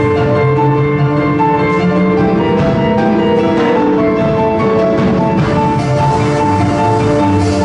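Live band playing an instrumental jazz piece: held melody notes over a moving bass line.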